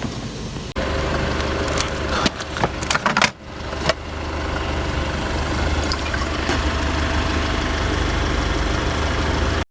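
An engine running steadily with a low hum. It starts abruptly about a second in, has a few clicks and knocks in the middle, and cuts off suddenly at the end.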